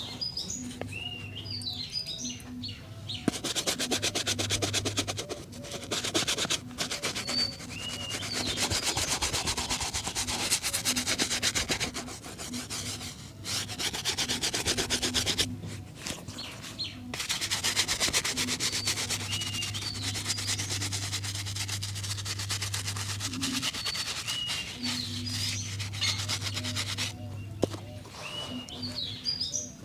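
Shoe polishing: a leather shoe being rubbed with fast, continuous strokes in long runs, broken by short pauses. Birds chirp in the background.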